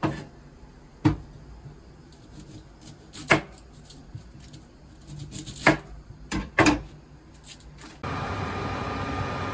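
Kitchen prep sounds: a handful of sharp knocks of vegetables and a knife being handled on a wooden cutting board and counter, with light paper-bag rustling between them. About eight seconds in, a steady rushing noise with a faint high hum takes over.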